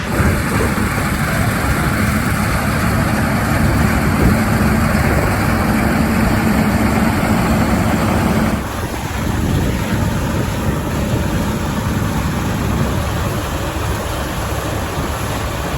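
New Holland combine harvester running at work: a steady drone of engine and machinery noise, whose sound changes abruptly a little over halfway through.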